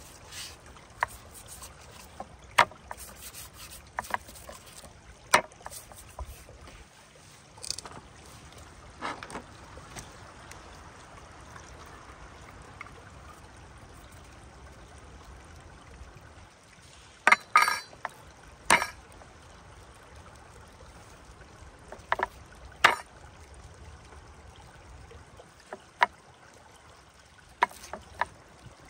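Scattered sharp taps and knocks from gloved hands handling raw beef on a wooden cutting board, with a quick cluster of them a little past the middle, over the faint steady rush of a shallow stream.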